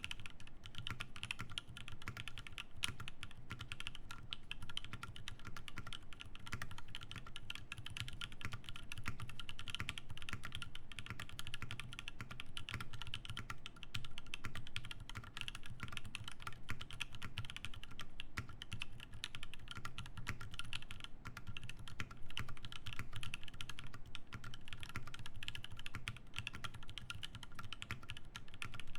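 Continuous fast typing on a Satisfaction 75 mechanical keyboard with lubed Alpaca linear switches, an FR4 plate, plate foam and GMK Bento keycaps: a dense, even run of keystrokes.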